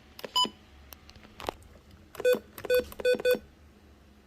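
Retekess TR265 weather radio's key beeps as its buttons are pressed: one higher beep about half a second in, then four lower beeps in quick succession about two seconds later, with faint button clicks between them.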